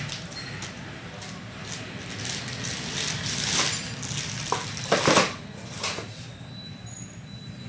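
Handling noise of rustling and light clicks, with a louder rustling burst about five seconds in, over a steady low hum.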